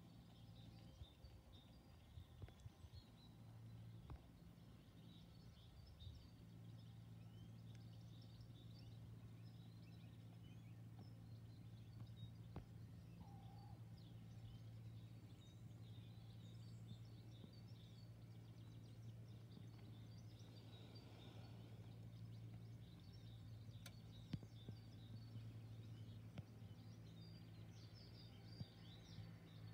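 Near silence: faint outdoor ambience with small birds chirping here and there and a low steady hum underneath.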